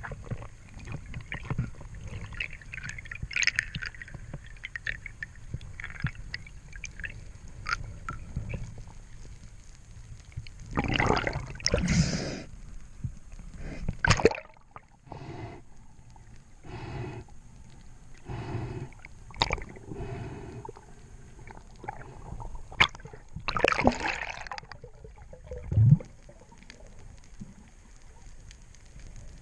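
Water sloshing and gurgling in uneven bursts, with a run of short, regular swishes in the middle.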